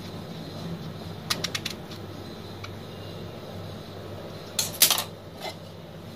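Short clicks and knocks of a knife and small green aubergines being handled against a ceramic bowl, in two brief clusters, about a second in and, louder, near five seconds in, over a steady low hum.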